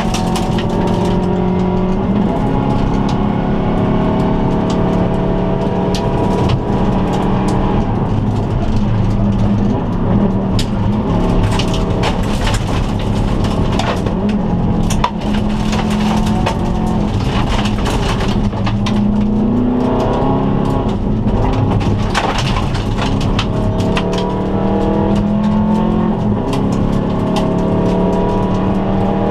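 Inside the cabin of a 2002 Subaru Impreza turbo wagon rally car at speed on gravel: its turbocharged flat-four engine revs up repeatedly and drops back at each gear change. Sharp clicks and knocks from gravel and stones striking the car are scattered throughout.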